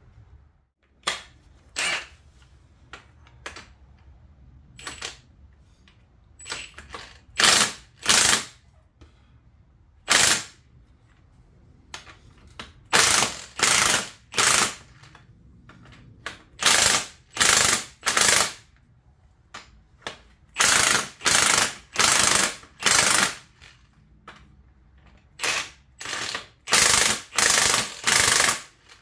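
Power wrench run in short bursts, over twenty of them, some single and some in quick runs of three or four, with rapid rattling hammering in each burst.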